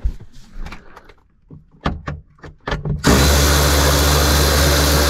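A few light clicks and knocks of a socket and extension being set on a bolt, then about three seconds in a cordless electric ratchet starts and runs steadily, spinning out a bolt that holds the convertible top's rear window.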